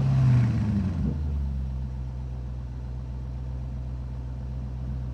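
Škoda Octavia 1.6 TDI four-cylinder diesel engine just after starting, its revs dropping about a second in and then idling steadily.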